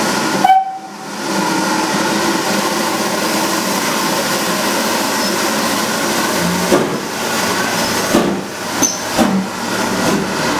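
Steam hissing steadily from GWR 4575-class small prairie tank locomotive 5552 as it stands and then eases forward. A few short knocks come about six to nine and a half seconds in.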